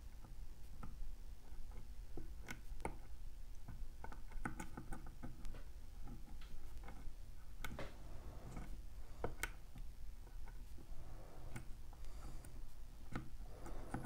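Faint, irregular clicks and ticks of a lock pick raising the pin-in-pin stacks of a Mul-T-Lock padlock under tension.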